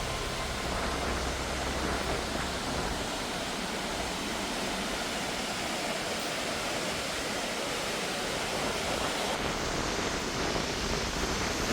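Steady rush of the Reuss river's white water tumbling through the gorge beneath the Devil's Bridge, an even hiss with a low rumble that fades out about two to three seconds in.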